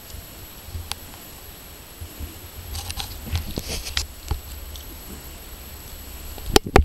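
Handling noise from a handheld camera: scattered small clicks and crackles over a low rumble, ending in two loud knocks in quick succession near the end.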